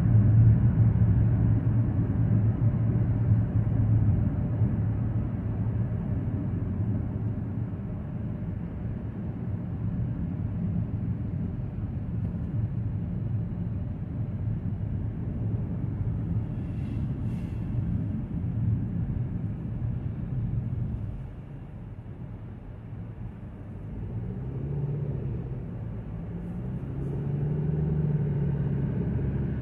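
Steady rumble of tyres and engine heard inside a Kia Seltos's cabin while driving on a highway. It drops for a few seconds about two-thirds through and grows louder again near the end, where a humming tone rises and falls.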